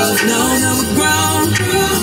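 A song playing, with a singing voice over a steady bass line.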